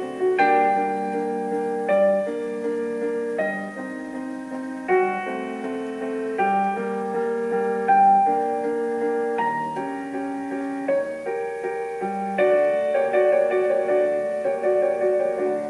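Background piano music: a slow passage of held chords and notes.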